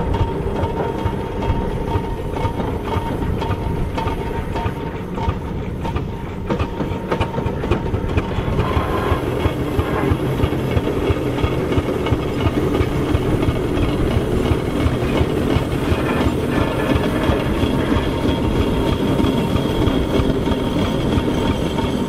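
Aveling & Porter steam road roller on the move: its steam engine running with a rapid, even beat and the clatter of its gearing.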